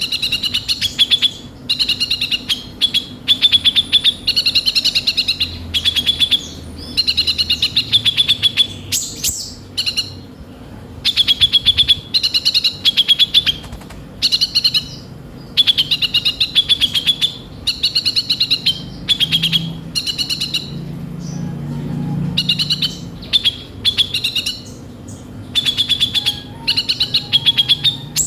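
A kolibri ninja sunbird singing non-stop in a harsh, rough song: phrases of rapid, high twittering chirps, each about a second long, repeated with short breaks between them.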